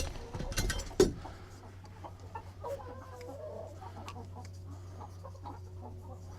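Domestic hens clucking, with a few sharp knocks and clatter in the first second, the loudest about one second in. A steady low hum lies underneath.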